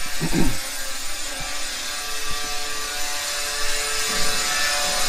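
A power tool runs steadily, making a high hissing grind with a faint steady whine. There is a brief falling sound just after the start.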